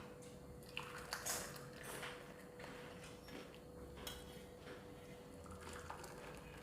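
Faint, scattered clinks and scrapes of steel kitchen utensils as a boiled herbal decoction is strained from the pot.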